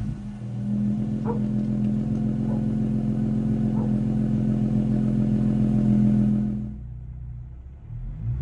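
Jeep Gladiator's 3.6-litre V6 running through an AWE Trail Edition aftermarket exhaust, holding one steady note with a few faint clicks. About seven seconds in it drops away to a quieter, duller sound, and a rising and falling rev starts near the end.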